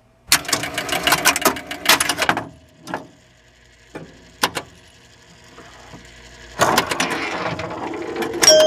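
Relays and stepper units inside an electromechanical pinball machine clicking and clattering: a rapid run of clicks for about two seconds, a few single clicks, then another run starting about two-thirds in.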